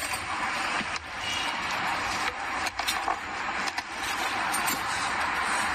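Steady rushing background noise of an outdoor work site, with a few light clicks and knocks scattered through the middle.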